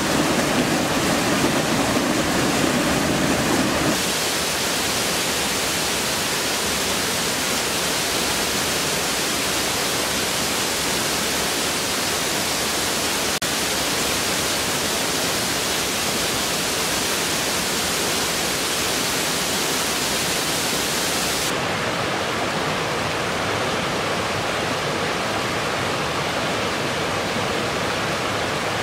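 Steady rush of a river waterfall, water pouring over rocks. The sound changes abruptly about four seconds in and again about twenty-one seconds in, and is less hissy in the last part.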